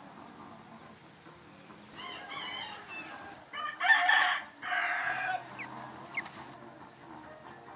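Chicken calling: a run of pitched calls from about two seconds in, loudest around four seconds, trailing off after about five and a half seconds.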